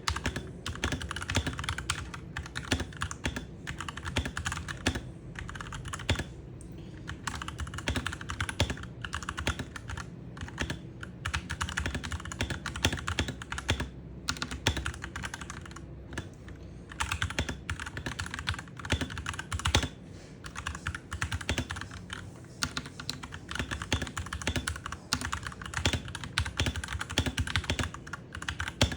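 Royal Kludge G68 65% mechanical keyboard being typed on: a fast, steady run of key clicks with a few short pauses.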